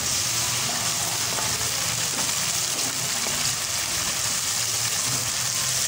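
Tomato paste sizzling in hot oil in a kadai as it is stirred with a wooden spoon, a steady hiss. The paste is being fried until the oil separates out.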